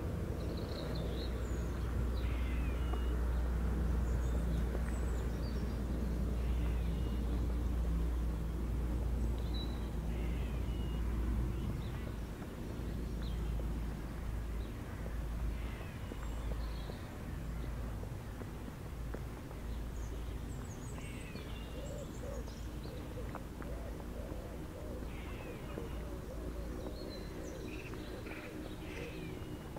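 Wild birds singing and calling, many short chirps and phrases from several birds scattered throughout, over a low steady rumble that eases about twelve seconds in.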